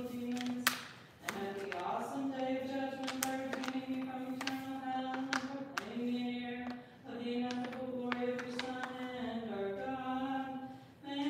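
Orthodox liturgical chant: an unaccompanied voice sings a hymn in long held notes, phrase by phrase, with brief pauses between the phrases.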